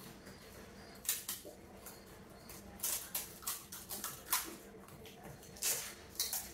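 Pani puri being eaten: crisp puri shells crunched and their pani slurped, in a string of short, sharp noisy bursts.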